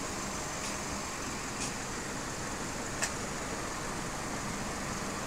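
Citroën C5 (first-generation facelift) 2.0 engine idling steadily, heard from outside the car, with a few faint ticks and one sharper click about three seconds in.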